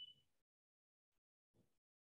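Near silence, broken by a faint short blip with a thin high tone right at the start and a fainter low sound about one and a half seconds in.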